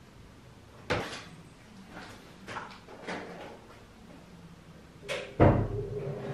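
Scattered knocks and handling clatter, then a heavy thud about five and a half seconds in, after which a machine starts a steady hum.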